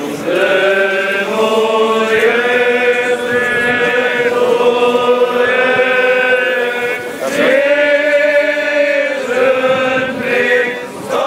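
Eastern Orthodox liturgical chant from a memorial service: several voices singing together in slow, long held notes that change pitch every second or two.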